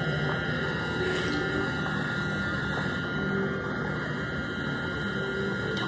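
Steady car engine and road hum heard inside the cabin while the car drives slowly.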